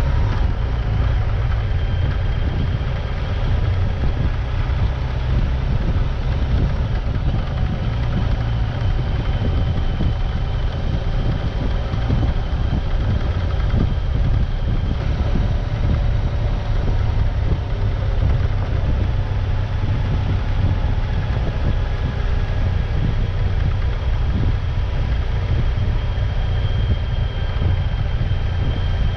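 Off-road vehicle driving steadily: a constant low engine rumble with road and wind noise, unbroken throughout.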